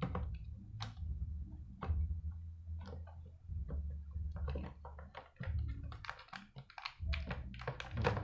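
Irregular plastic clicks, taps and small knocks as the laptop's internal battery is worked back into its bay, coming thicker and faster in the second half, over a low hum.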